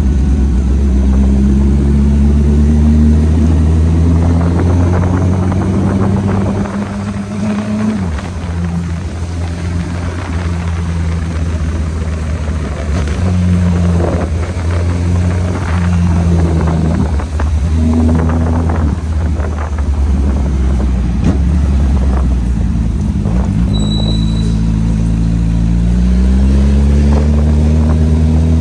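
Honda motorcycle engine pulling the bike along a street at low speed, its revs rising and falling as the rider rolls the throttle on and off. The revs dip about a third of the way in and climb again near the end.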